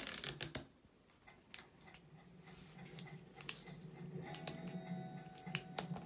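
Scattered light clicks and ticks of a plastic spudger and fingertips working a laptop trackpad flex cable into its connector.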